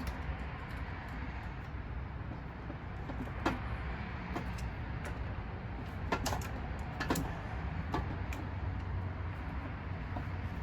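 A handful of sharp, light metal clicks from handling the washer and cotter pin on a hand truck's wheel axle, about half a dozen spread irregularly, over a steady low rumble in the background.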